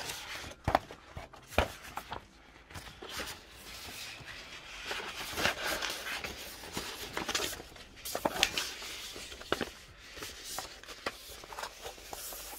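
Large folded paper posters being unfolded and handled, rustling and crinkling with irregular sharp crackles.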